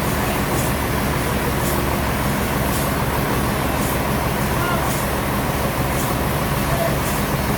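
Heavy sawmill machinery running steadily: a low engine hum under loud, even noise, with a faint high tick about once a second.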